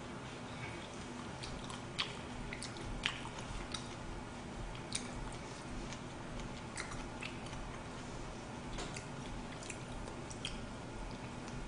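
A person eating with chopsticks: soft chewing and mouth sounds, with about a dozen sharp clicks of chopsticks against the dish, over a steady low hum.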